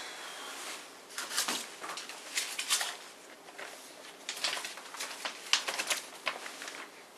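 Glossy magazine pages crackling and rustling as the magazine is pulled out, opened and leafed through, in an uneven run of sharp paper crinkles.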